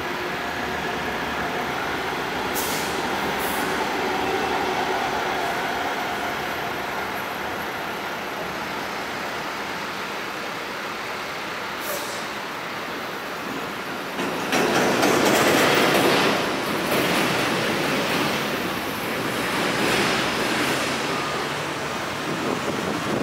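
Road traffic noise in slow, queued traffic, with a louder rush of a passing vehicle about fourteen seconds in.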